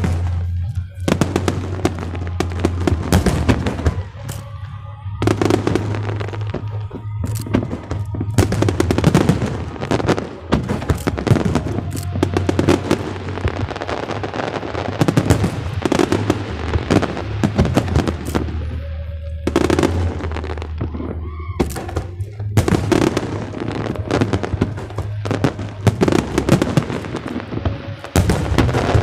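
Aerial fireworks bursting and crackling in rapid, continuous succession, with music playing underneath.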